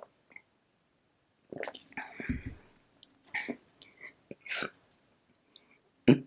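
Close-up mouth and throat noises of a person drinking soda: a few short, irregular sips, swallows and breaths, with a louder one right at the end.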